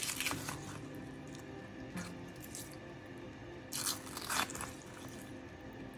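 Wooden spoon stirring thick, creamy bean soup in a pot, making wet squelching and slopping sounds, louder twice about four seconds in.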